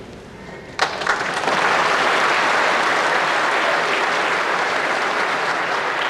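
Audience applauding, starting suddenly about a second in and going on steadily.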